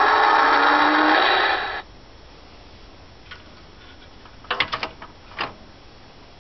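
Tonka Big Bruiser toy dump truck's built-in electronic truck-sound module playing a buzzy, noisy truck sound through its small speaker, which cuts off suddenly under two seconds in. A few sharp clicks and knocks follow a little past the middle.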